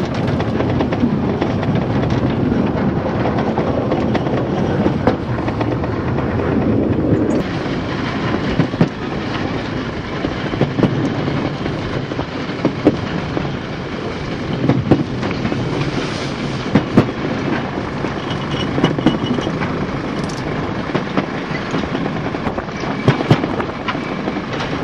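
Narrow-gauge steam train running, heard from aboard a coach: a steady rumble and hiss, with irregular sharp clicks of the wheels over the rail joints.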